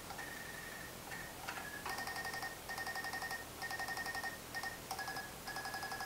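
Electric fuel pump, pulsed by a pulser unit after key-on, ticking rapidly as it pumps fuel. The ticking starts about two seconds in and comes in short runs with brief breaks, over a thin high whine.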